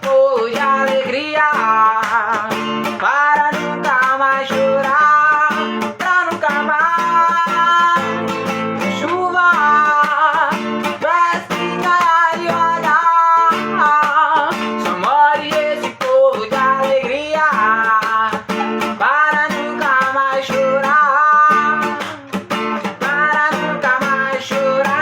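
Acoustic guitar strummed in a steady rhythm, with a melody that bends in pitch over it, stopping suddenly at the very end.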